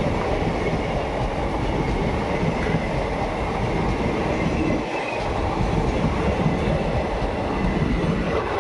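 Indian Railways NMG automobile-carrier freight rake passing close by: a continuous loud rumble of wagon wheels on the rails, with a faint steady high whine over it.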